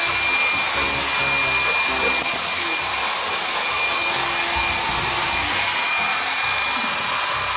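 Handheld hair dryer running: a steady, loud rush of air with a thin high whine from its motor.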